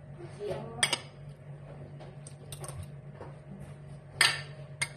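A metal spoon clinking and scraping against a plate as food is scooped up, with sharp clinks about a second in and twice more near the end, over a steady low hum.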